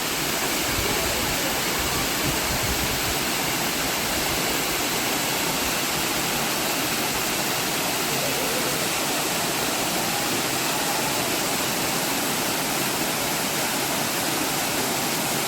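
Waterfall's falling water rushing steadily: an even, unbroken roar with no pauses or changes.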